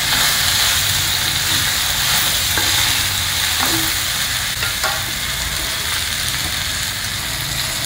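Chopped okra sizzling in hot oil in a kadai while being stirred with a wooden spatula. The stirring stops near the end and the steady frying sizzle carries on.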